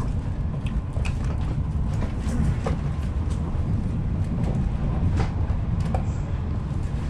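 Italo AGV high-speed train heard from inside the carriage while it runs at moderate speed: a steady low rumble, with irregular clicks and knocks from the wheels crossing rail joints and points.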